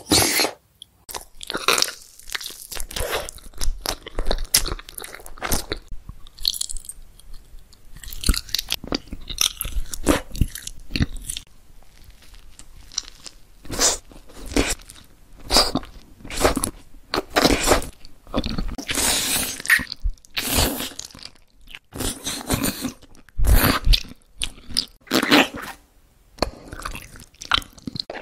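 Close-miked eating: repeated bites and wet chewing, some of it crisp, in irregular short bursts with brief pauses. The food being chewed about halfway through is a soft sandwich of white bread, whipped cream and kiwi fruit.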